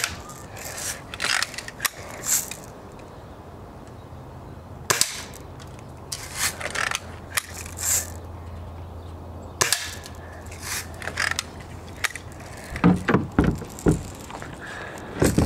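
BB gun being fired repeatedly, with about a dozen sharp snaps spaced irregularly a second or two apart and a quick cluster near the end, mixed with BBs smacking into plastic toy army targets.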